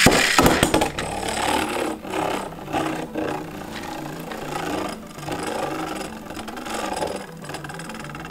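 Beyblade Burst string launcher ripped: a loud whirring rip at the start as the string pulls out. Then the launched Beyblade spins and rattles on the plastic stadium floor, rising and falling in loudness.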